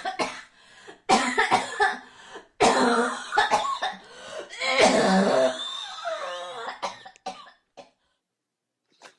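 A person coughing hard in a series of harsh fits, about five bouts over some eight seconds, with throat-clearing, then stopping.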